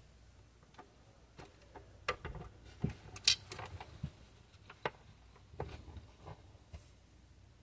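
Faint, irregular clicks and light taps of a 1:18 diecast model car's hinged plastic and metal parts being handled as its hood is opened, with one sharper click a little over three seconds in.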